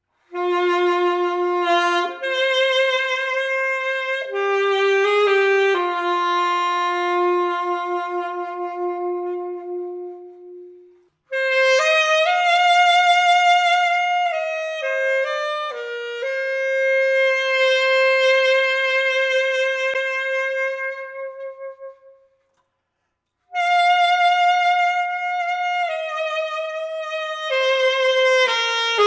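Yamaha YAS-200AD alto saxophone played solo: a slow melody in three phrases, with long held notes sung out with vibrato and a short pause after each phrase dies away.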